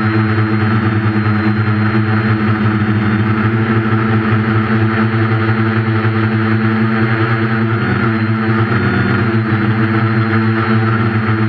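Quadcopter's four brushless motors and 8.5-inch propellers, heard from the onboard camera, humming steadily in flight. The pitch drops briefly about eight seconds in, then climbs back as the throttle comes back up.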